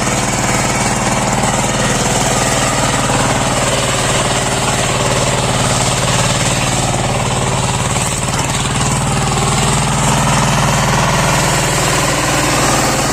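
Kirloskar power tiller's single-cylinder diesel engine running steadily with a rapid, hammering chug while ploughing.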